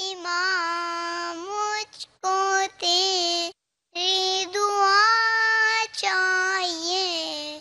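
A young boy singing solo into a microphone with no accompaniment, holding long notes in phrases broken by short pauses, the longest about halfway through.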